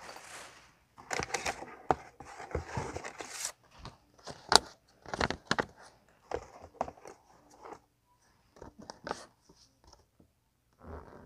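Plastic wrapping and a folded paper instruction leaflet crinkling and rustling as they are handled and unfolded: irregular crackles with short pauses.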